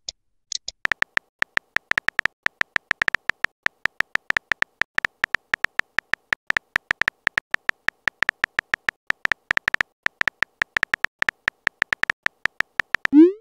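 Rapid, evenly repeated phone-keyboard typing clicks as a text message is typed out letter by letter.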